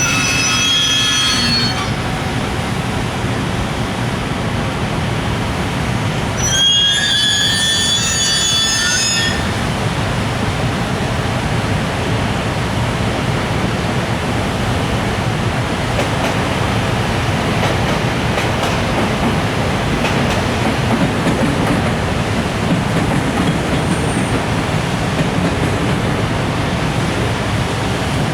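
Container freight train, with EF510 electric locomotive and Koki container wagons, rolling past as it pulls out of the station: a steady rumble of wheels on rails, with high wheel squeal at the start and again from about seven to nine seconds in.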